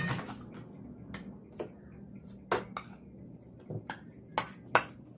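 Tableware clinking: a fork and ceramic bowls and plates tapping and knocking on a table as noodles are served, about seven separate sharp clicks spread out, the loudest two near the end.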